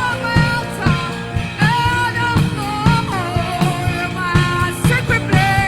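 Church choir and band performing a gospel worship song: voices holding sung notes between lines of the lyric over a steady-beat instrumental backing.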